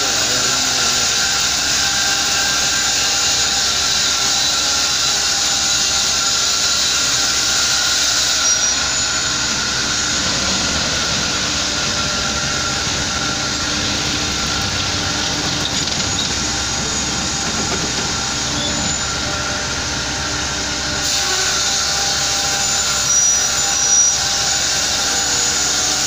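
Vertical log band saw running steadily as it cuts a large pine log on its carriage: a continuous loud mechanical whine and rasp. Brief high squeaks come about a third of the way in and again near the end.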